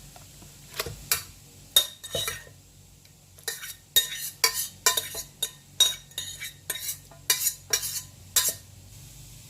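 Pestle pounding and mixing boiled bamboo shoots into pounded chili in a mortar: sharp knocks, a few scattered at first, then a steady run of about two to three strokes a second.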